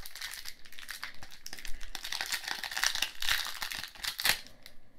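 Foil Pokémon booster-pack wrapper crinkling and crackling as it is handled, with a sharper crackle a little after four seconds in.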